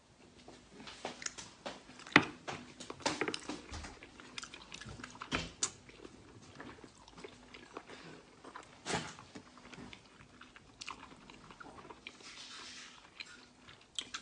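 Close-miked eating: irregular bites and crunchy chewing with crisp mouth clicks, the loudest crunch about two seconds in.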